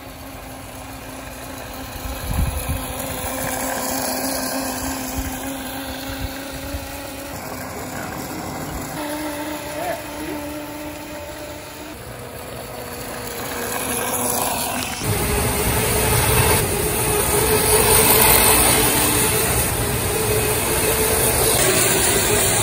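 Children's electric mini motorbike running, its electric motor giving a steady whine that shifts pitch as the speed changes. About fifteen seconds in, the sound jumps louder, with the bike now riding in a parking garage.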